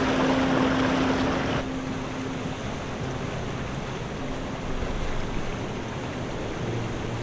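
Sea surf washing along a rocky shore, a steady rush with wind on the microphone. The higher hiss drops away suddenly about one and a half seconds in, leaving a softer wash of water.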